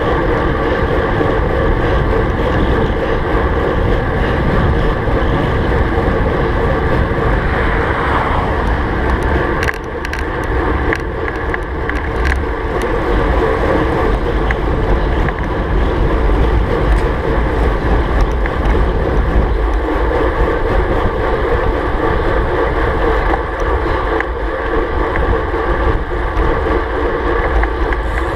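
Steady wind noise buffeting the camera microphone of a road bike riding at about 35–40 km/h, over a low rumble of tyres on asphalt. A few clicks about ten seconds in.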